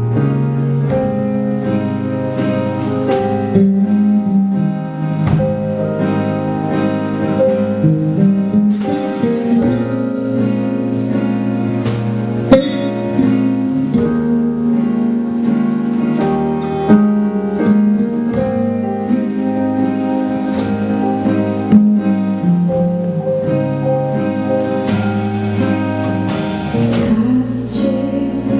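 Live band music from a stage performance of an indie pop song, playing through a long stretch with no sung lyrics.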